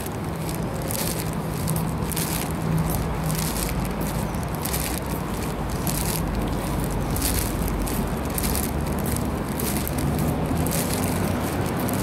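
Walking footsteps scuffing on paving, about two a second, over a steady rumble of street traffic.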